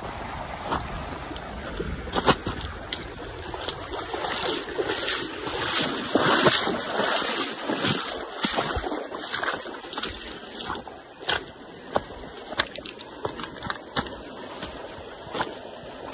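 Footsteps splashing and crunching through a shallow, stony creek, roughly one step a second, over the rush of moving water that swells through the middle.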